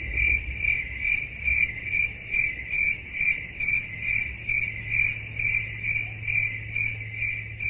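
Cricket-chirping sound effect, the comic 'awkward silence' gag: an even run of high chirps, about two to three a second, over a low hum.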